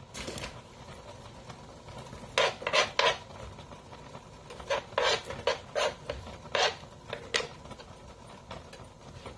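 A utensil scraping against a plate: short, sharp scrapes in clusters, about a dozen in all, as sautéed garlic and onion are scraped off into the pan.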